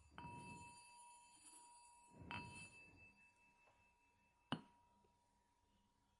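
Bell struck faintly three times, about two seconds apart, each strike leaving a steady ringing tone that hangs on between them. The third strike is a short, sharp tap.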